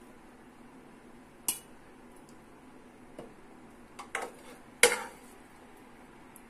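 A metal spoon clinking against a stainless-steel mixer-grinder jar as cooked onion-tomato masala is scraped in for grinding: a few sharp clinks, the loudest about five seconds in.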